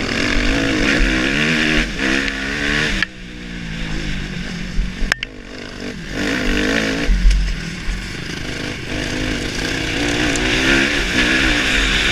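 Suzuki motocross bike's engine heard on board at full practice pace, revving up and down repeatedly as the throttle is worked. The revs drop off sharply about three seconds in, with a single sharp click about five seconds in, then build again.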